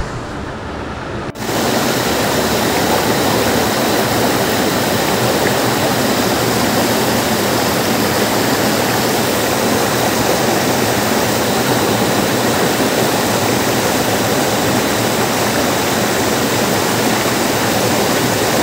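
Rushing water of a small mountain stream, a loud, steady, even rush that comes in abruptly about a second in after a quieter stretch.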